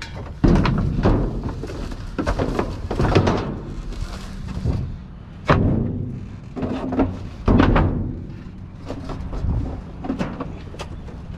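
Repeated thuds, knocks and clatter of junk and scrap being handled and dropped, with three heavier thumps about half a second in, about five and a half seconds in and about seven and a half seconds in.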